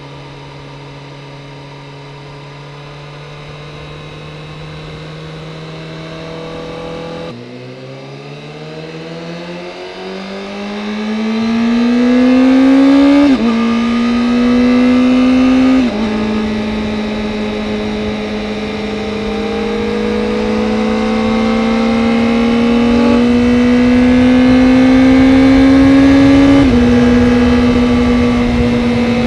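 Honda CBR Fireblade's inline-four engine pulling through the gears on a break-in ride: its pitch climbs steadily and drops at each of four upshifts, about seven, thirteen, sixteen and twenty-seven seconds in. A rush of wind noise grows as speed builds.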